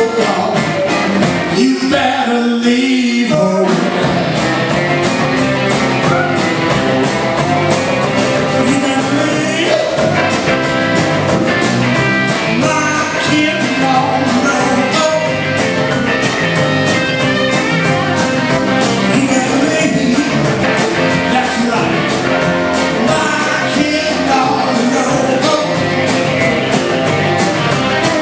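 Live rock and roll band playing: two electric guitars, an electric bass and a drum kit keeping a steady beat. The bass and drums drop out briefly about two seconds in, then the full band comes back.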